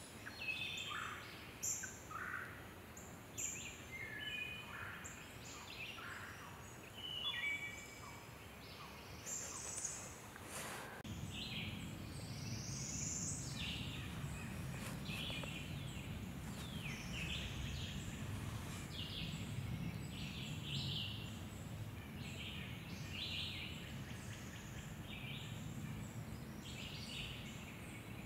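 Several wild songbirds singing and calling in short, repeated phrases. About eleven seconds in, a steady low rumble comes in beneath them and stays.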